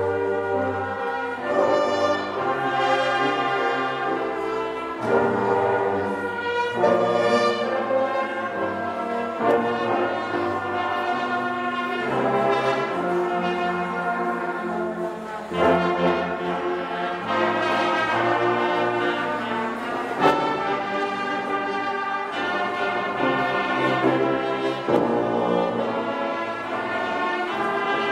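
Trombone choir of trombones, euphoniums and tubas playing together in held chords that change every second or two, over a low brass bass line.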